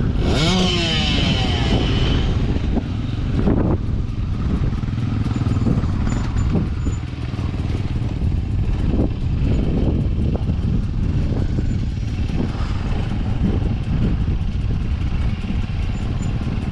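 Enduro dirt bike engines, one revving up with a rising pitch near the start, then running on steadily at a lower drone.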